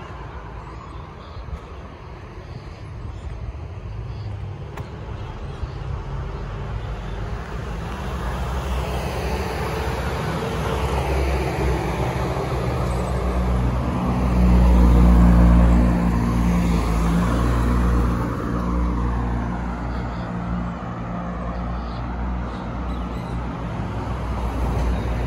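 Road traffic passing on a busy main road. One vehicle's engine grows louder and passes close just past halfway, then fades, with a steady traffic rumble underneath.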